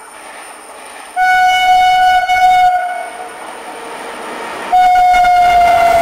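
Electric locomotive's horn sounding two long blasts as it approaches at speed, the first about a second in and the second near the end. The second blast drops slightly in pitch as the locomotive draws close. A low rumble of the approaching train sits underneath.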